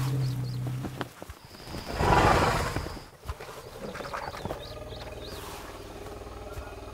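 African elephant's low pitched call ending about a second in, then a loud rushing whoosh around two seconds in. After that comes quieter scuffing of sand as the elephant digs a well in the dry lakebed, with a few small high bird chirps.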